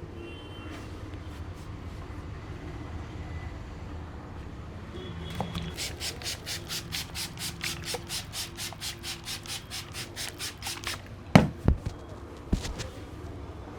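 Hands rubbing briskly over a head of hair in a head massage, about four strokes a second for some five seconds, followed by three sharp, loud clicks.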